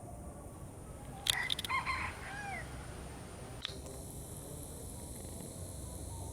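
Rice-field ambience with a steady high insect buzz; a little over a second in, a few sharp clicks and a short call that rises and falls, then a single click a couple of seconds later.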